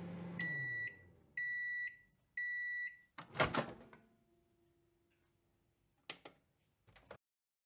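Microwave oven finishing its cycle. Its running hum winds down, then it gives three high end-of-cycle beeps about a second apart. The door then pops open with a sharp clunk, and two light clicks follow near the end.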